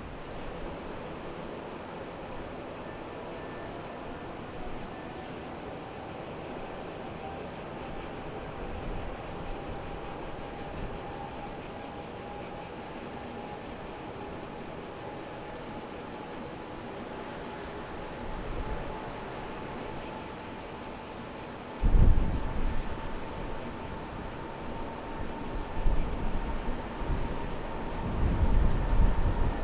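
Insects chirring in a steady high-pitched chorus. Under it a distant jet engine whines faintly, slowly rising in pitch, with low rumbles swelling about two-thirds of the way in and again near the end.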